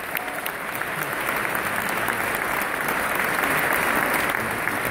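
Audience applauding: a dense, steady patter of many hands clapping, swelling slightly about three to four seconds in.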